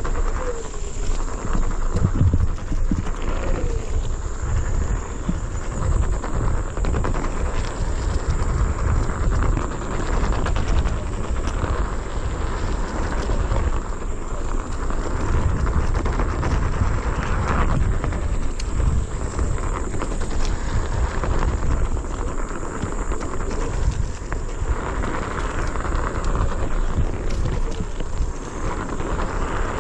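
Wind buffeting the microphone and the rumble and knocks of a Onewheel rolling fast over a bumpy dirt trail, with a thin steady high whine throughout.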